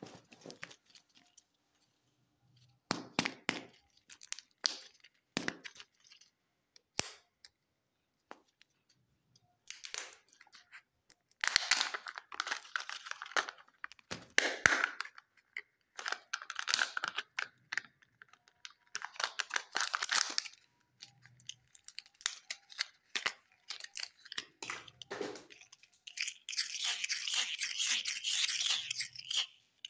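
Crinkling and rustling of Kinder Joy eggs' foil wrappers as hands handle them in a pile, coming in irregular bursts with a few sharp clicks between. The longest and loudest stretch of crinkling comes near the end.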